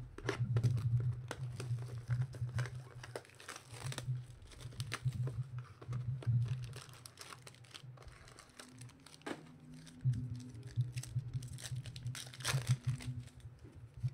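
Trading-card packaging being handled and opened: box cardboard and wrappers crinkling and tearing, with cards clicking and sliding against each other, over a low hum that comes and goes.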